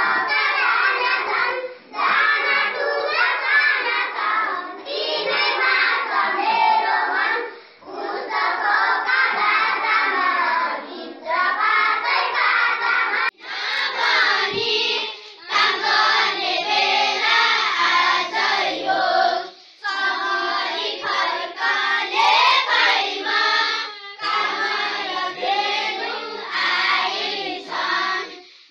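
A group of children singing together in phrases with short breaks between them. About halfway through it cuts to another group of children singing.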